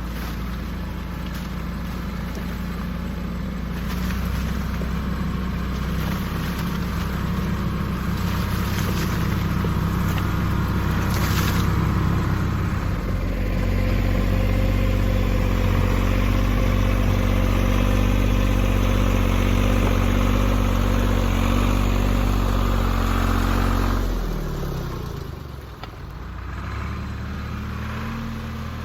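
Tractor engine running steadily. About halfway through it gets louder and works harder; near the end the revs fall and it drops back to a lower, quieter run.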